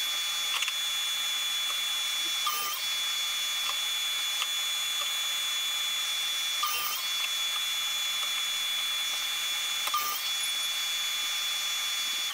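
Steady high-pitched machine whine from workshop power tools, with a brief dip every three to four seconds.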